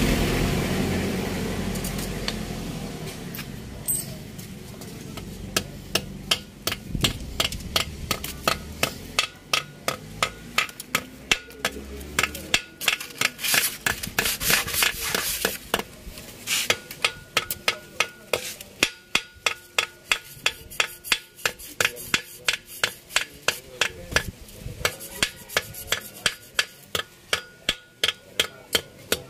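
Ball-peen hammer tapping metal on metal inside a cylinder bore of an Isuzu 4BC2 diesel engine block, about two blows a second. A low engine rumble fades out over the first few seconds, before the tapping starts.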